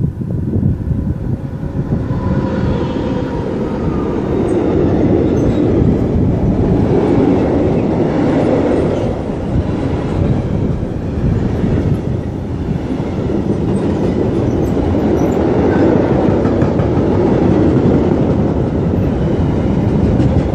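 Freight train passing through the station close by: an electric locomotive followed by a long string of freight wagons rolling past. The wheels on the rails make a steady, loud rumble that swells over the first few seconds as the wagons come alongside.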